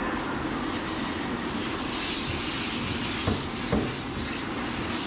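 Water spraying from a hand-held hose nozzle onto a dog's coat and the stainless steel tub: a steady hiss that grows brighter about two seconds in. Two short knocks come a little after three seconds.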